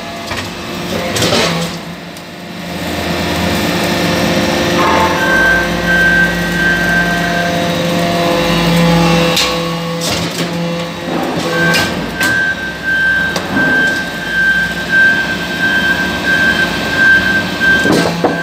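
Hydraulic briquetting press for metal chips running: a steady motor and pump hum with a high whine that comes and goes, and a few sharp knocks as briquettes are pressed out and moved.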